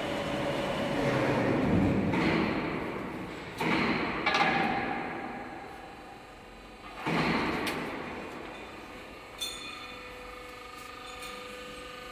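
Cut steel C-profiles clanging against each other and the floor: three loud metal clangs that ring on, two close together about four seconds in and one about seven seconds in. Under them is the steady hum and rumble of the roll forming line, and the rumble fades after the first few seconds.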